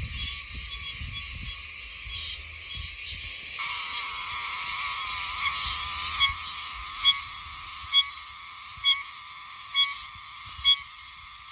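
Oshima cicada (Meimuna oshimensis) singing: a steady high-pitched buzz, joined about halfway through by a rhythmic run of sharp notes repeating about once a second.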